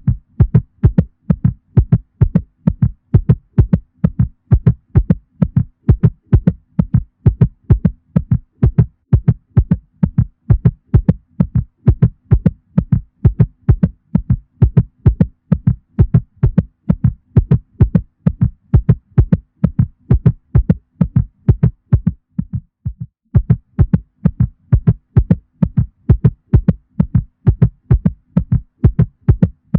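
A mother cat's heartbeat played as a sound effect: fast, evenly spaced beats. The beats drop out briefly about three-quarters of the way through, then resume.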